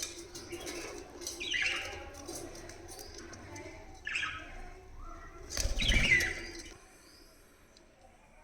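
Budgerigars chirping, with three louder bursts of calls, the last and loudest with a dull low noise under it; the birds fall quiet near the end.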